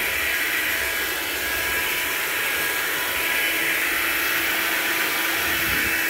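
Hoover Linx cordless stick vacuum running steadily as it is pushed over a hard floor: an even whirring hiss with a faint steady whine.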